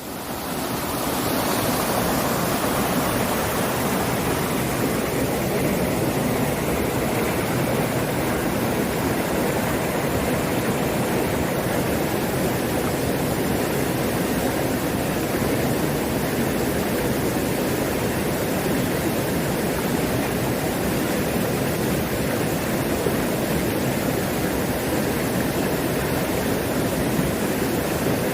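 Mountain stream in full flow rushing and cascading over the rocks of a mossy gorge, a steady, unbroken rush of water that fades in over about the first second.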